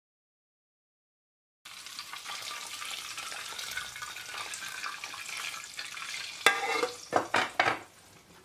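Pot of ezogelin (red lentil) soup simmering on the stove, a steady bubbling hiss that starts about a second and a half in, while it is ladled and stirred. A few louder stirring strokes in the pot come shortly before the end.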